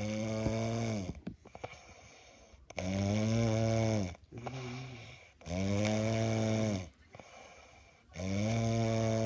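Snoring: four long, loud, buzzing snores, each over a second long and coming about every two and a half to three seconds, with quiet breaths between.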